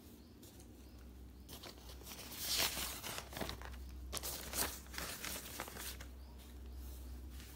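Paper being handled, with pages turned: a run of rustling and crinkling, loudest a little before the middle, over a low steady hum.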